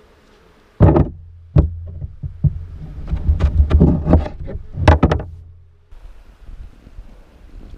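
A series of knocks and thumps over about five seconds, starting with a sharp loud one and with another loud one near the end. Under them is a low rumble that stops abruptly.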